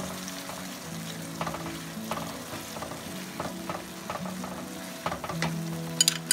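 Yogurt-and-spice curry masala sizzling in oil in a non-stick pan while a wooden spatula stirs and scrapes through it, the bhuna stage of frying the masala until the yogurt's water dries off. A few sharp clicks near the end.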